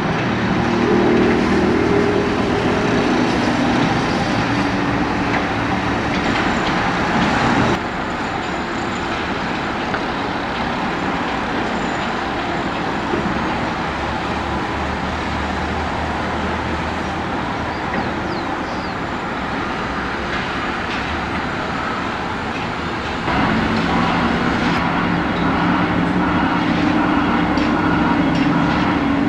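Heavy diesel machinery running steadily in a continuous engine drone. The sound turns quieter and deeper about 8 seconds in and comes back louder near 23 seconds.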